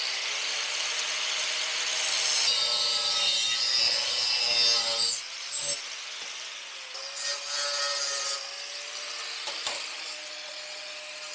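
A power tool cutting across the steel body of a vise grip locking plier, a continuous gritty cutting noise with a steady whine. The cut is heaviest for the first five seconds, breaks off briefly, then carries on more lightly.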